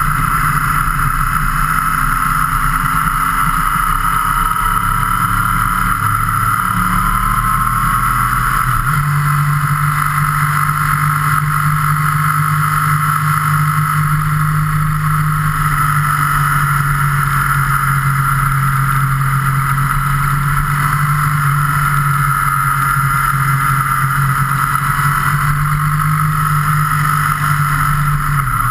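Vehicle engine running at a steady cruising speed, with constant wind noise over the camera. The engine note steps up about nine seconds in and drops back shortly before the end.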